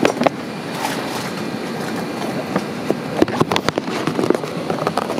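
Camera rubbing and knocking against a backpack's fabric and straps while the holder walks down an airliner aisle, over a steady background hum. A quick knock comes right at the start, and a thicker run of knocks and rustles about three seconds in.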